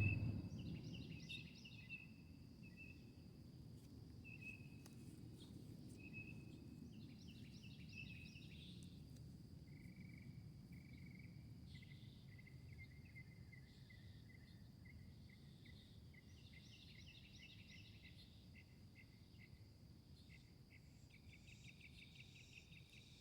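Faint birdsong: birds chirping and trilling on and off, over a steady high-pitched insect drone and a low background rumble.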